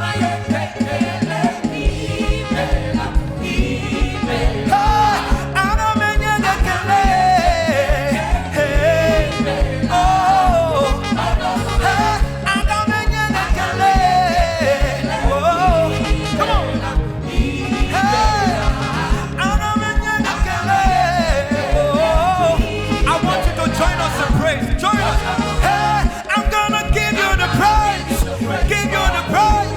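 Live gospel praise music: a church band playing an upbeat song with a steady beat, with singing over it.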